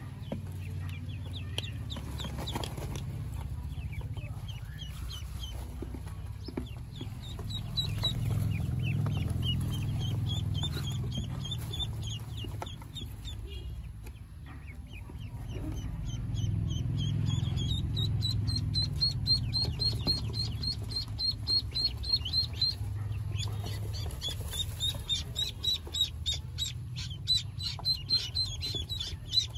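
Newly hatched ducklings peeping: long runs of short, high-pitched peeps that come faster and sharper in the last few seconds, over a low, steady background noise.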